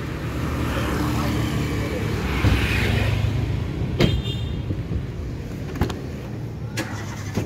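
A car drives past close by on the street, its engine and tyre noise swelling and then fading. About four seconds in there is a sharp metallic click, and another about three seconds later.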